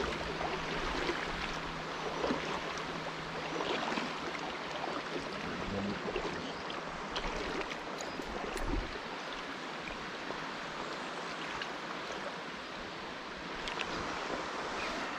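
A river running steadily, its water rushing at low summer level.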